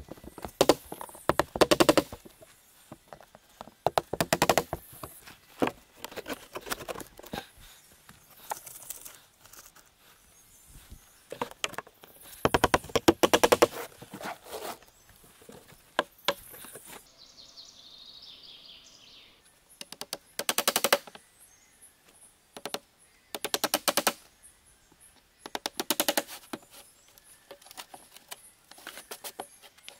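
Hammer driving nails into wooden roof boards in quick bursts of rapid blows, with short pauses between the bursts.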